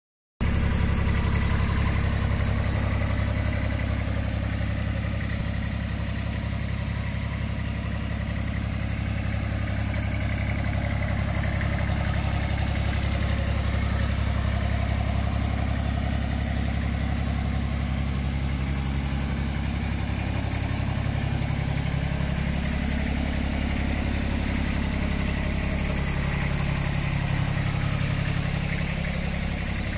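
Kubota RTV 1100 utility vehicle's three-cylinder diesel engine idling steadily, with a thin, steady high whine alongside it.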